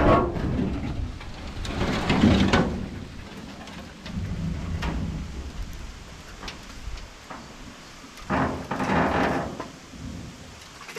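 Wind rumbling on the microphone in gusts, with scraping and a few sharp knocks as the old pickup's steel bed is tipped off the frame.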